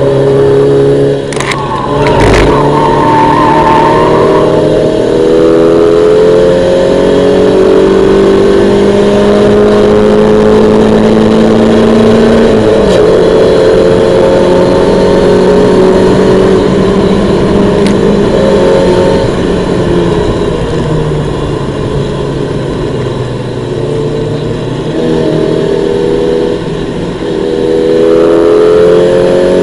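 1991 Mazda MX-5's 1.6-litre four-cylinder engine, recorded on board, pulling hard and climbing steadily in revs. The pitch drops suddenly at gear changes, about 13 seconds in and again a few seconds later, then climbs again near the end. A couple of sharp knocks sound early on.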